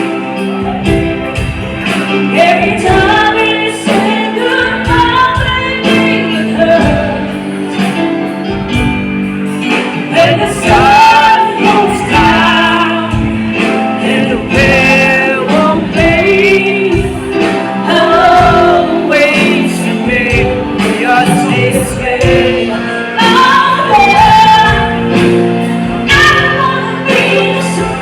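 Live band playing a song with a female lead singer, sustained sung notes over a steady drum beat.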